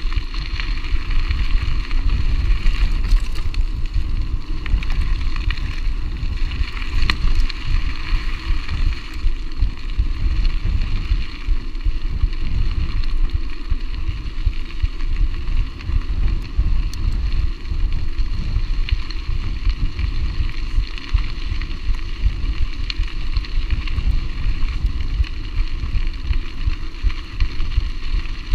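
Steady wind rumbling on the microphone over the rolling noise and rattle of a mountain bike on a dirt road.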